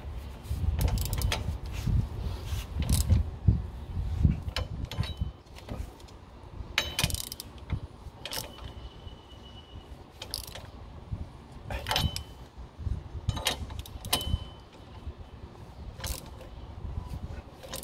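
Hand tool, most likely a ratchet wrench, tightening the four bolts of a new rear wheel hub bearing in a diagonal pattern. Scattered sharp metallic clicks and knocks, with rumbling handling noise in the first few seconds.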